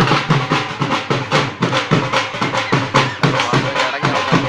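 A drum beaten in a fast, steady rhythm of about four to five strokes a second.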